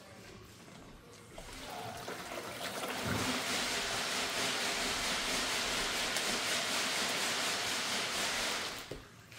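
Water from a plastic fish shipping bag poured through a fish net into a plastic bucket, a steady splashing pour that builds over the first few seconds and stops near the end.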